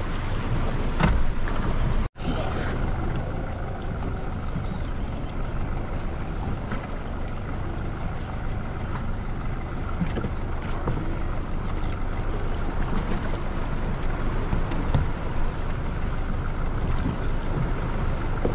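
Steady low rumble of a fishing boat's engine running at sea, mixed with wind and water noise. The sound cuts out for an instant about two seconds in, then carries on unchanged.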